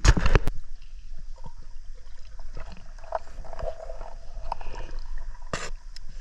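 Water splashing as a swimmer ducks under the surface. After that comes muffled underwater sound with scattered faint clicks, and one sharp knock about five and a half seconds in.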